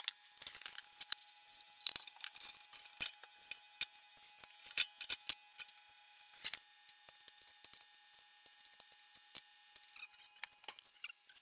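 Irregular sharp clicks and light clinks of kitchen utensils against a pan and a glass bowl as desiccated coconut is measured out and stirred in a pan to toast, over a faint steady hum.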